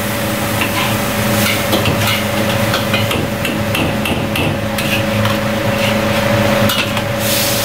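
Metal ladle and spatula clanking and scraping against a large wok while stir-frying rice, with repeated knocks about three a second over a steady hum.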